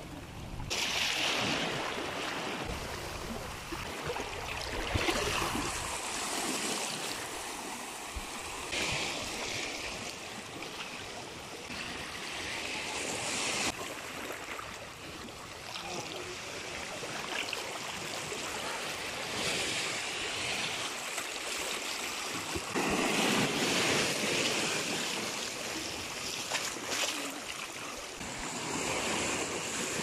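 Small sea waves washing in and out through a rocky channel, water rushing and swirling over the stones. It swells in surges every four seconds or so, the loudest about three-quarters of the way through.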